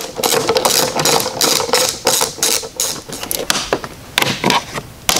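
Ratchet clicking rapidly as a T30 Torx screw holding the wiper cowl is backed out, then fewer, separate clicks of hands working the cowl's plastic clips.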